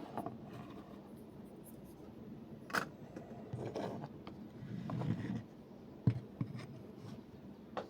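Small metal parts of a PACLOCK 90A-PRO padlock being handled: faint scraping, with a sharp click about three seconds in and another about six seconds in.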